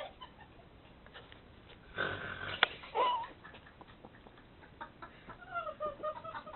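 A person snoring in an odd, bird-like way. A rough noisy breath comes about two seconds in, then a short bending whistle-like tone. Near the end comes a longer wavering cooing tone, like an "ooh".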